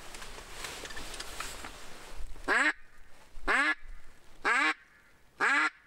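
Four loud duck quacks, evenly spaced about a second apart, starting about two and a half seconds in.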